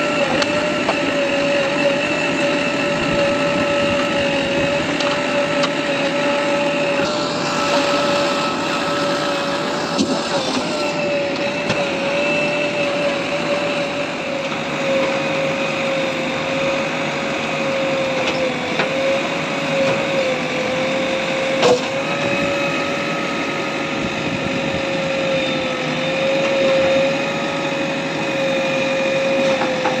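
Concrete road-paving machinery running: a slipform paver with its concrete vibrators and a JCB backhoe loader's engine make a continuous drone with a steady whine over it. One sharp click a little past twenty seconds in.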